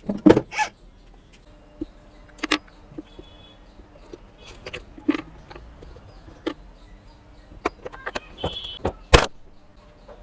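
Scattered sharp clicks and knocks at irregular intervals, the loudest about nine seconds in, with a brief high chirp just before it.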